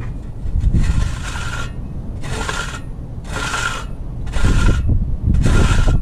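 Steel hand trowel, a notched trowel used on its smooth side, scraping across wet concrete in repeated smoothing strokes, about one a second, each a rasping scrape under a second long.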